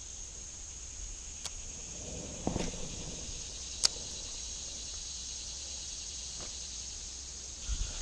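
Steady high-pitched buzz of an insect chorus, with a few short sharp clicks about a second and a half and four seconds in and a soft knock between them.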